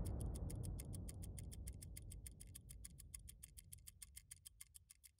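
A low tail of trailer music dies away under a fast, even ticking of about seven ticks a second. The ticking carries on alone once the music has faded, near the end.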